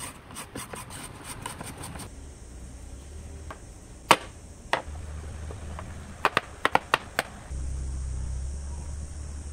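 Hand chisel working cypress wood: a quick run of light clicks in the first two seconds, then scattered sharp wooden knocks, a loud one about four seconds in and a cluster of about five near the seventh second. A low hum underneath gets louder near the end.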